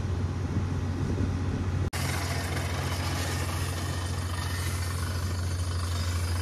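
Water-well drilling rig running steadily while drilling through rock with a down-the-hole hammer, a deep engine hum underneath. The sound drops out for an instant about two seconds in and comes back with more hiss in it.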